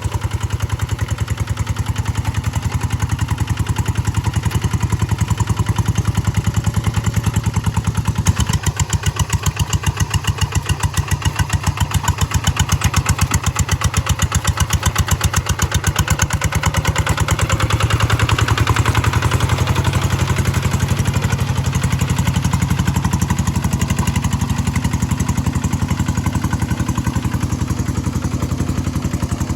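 G1000 hand tractor engine running steadily with a fast, even chugging beat. It grows louder for a few seconds a little past halfway through, then settles back.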